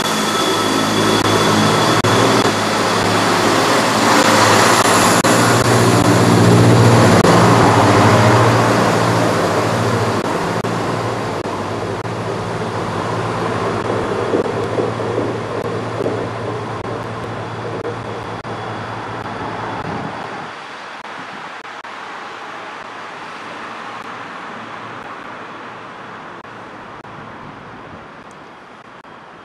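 Northern Class 170 Turbostar diesel multiple unit pulling away from the platform, its underfloor diesel engines running under power and wheels rolling on the rails. It is loudest in the first several seconds and fades steadily as it draws away; the engine note drops out about twenty seconds in, leaving a faint rumble.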